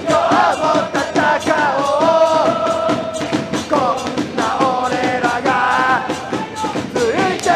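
Football supporters singing a chant together, one melody in long held notes, over a regular beat.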